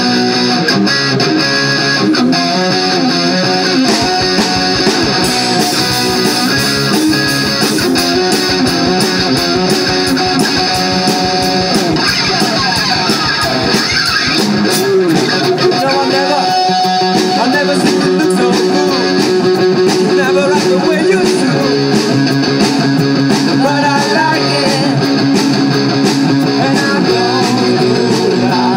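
Live band playing a song: electric guitar, bass guitar and drums.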